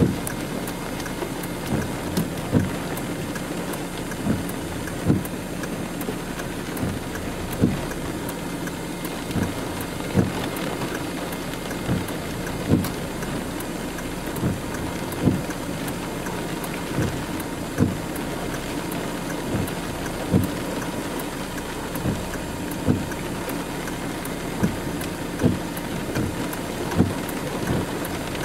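Windshield wipers sweeping across rain-wet glass, a thump at the end of each stroke about every two and a half seconds, over a steady hiss of rain on the vehicle.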